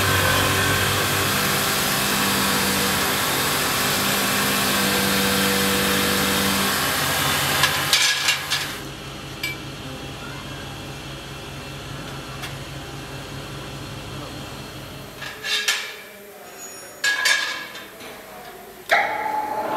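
A motor-driven grinding wheel grinds a steel motorcycle wheel rim, a loud steady hiss over the motor's hum, for about the first eight seconds. After it stops there are a few sharp metallic knocks, and near the end another workshop machine starts running.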